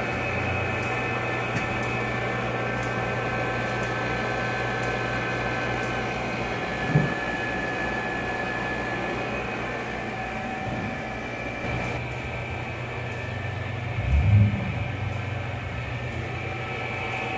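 Robinair AC refrigerant recovery machine running steadily while it pulls the old refrigerant out of the vehicle's AC system: a steady low hum with a few steady higher tones, and a faint tick about once a second. A brief low bump sounds near the end.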